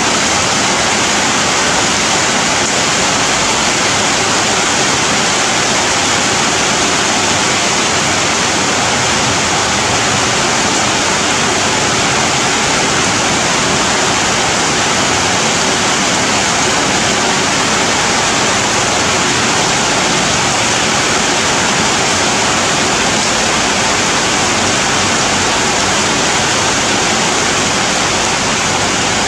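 Steady, dense rain falling on leafy vegetation: an even, unbroken hiss with no single drops standing out.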